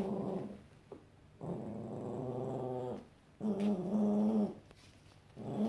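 Manchester terrier puppy growling in long, drawn-out growls, one after another with short pauses, about four in all.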